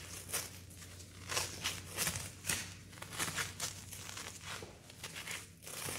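White athletic tape peeling off its roll in short, irregular crackling rasps as it is pulled out and wrapped around an ankle for a heel lock. A faint steady low hum runs underneath.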